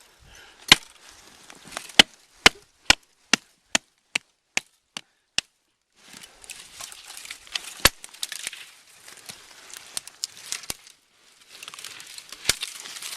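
Lightweight Fire Hawk hatchet chopping a skinny green tree: a run of about ten sharp blows that quickens to more than two a second and grows fainter. After that come a few more single blows over rustling and crunching.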